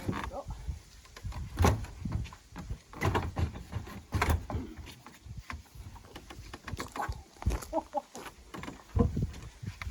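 A door being handled and set into its frame opening: irregular knocks and thumps, several in a row with uneven gaps.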